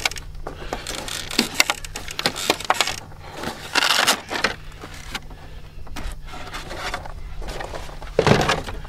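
Plastic body shell of an Arrma Mojave RC truck being unfastened and lifted off its chassis by hand: a string of small clicks, rattles and scrapes, with a louder rustle about four seconds in and another near the end.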